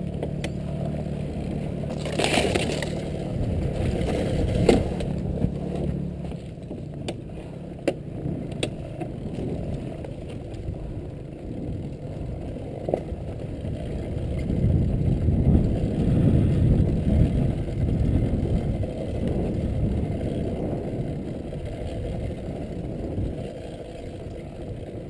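Honda CRF450R dirt bike's single-cylinder four-stroke engine running at a steady note for about the first six seconds; its note then drops away, leaving the rolling rumble of the bike over rough dirt and rocks with occasional sharp knocks.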